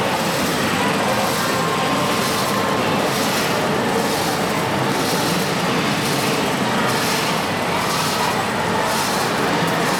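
Large-scale radio-controlled model trucks running, a steady even vehicle-like noise with no distinct knocks or starts.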